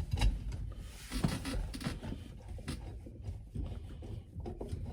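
Scattered rubbing, tapping and clicking as the shifter boot and its trim ring are worked into place over the shifter and the car's floor sheet metal while the blind screw holes are felt for.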